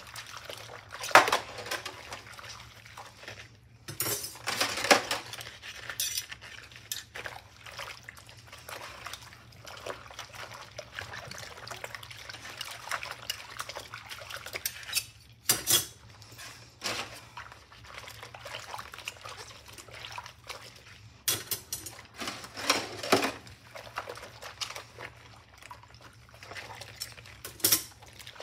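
Metal cutlery and a wire whisk being washed by rubber-gloved hands in a stainless steel sink of soapy water: water sloshing and splashing, with frequent sharp clinks of metal utensils knocking together.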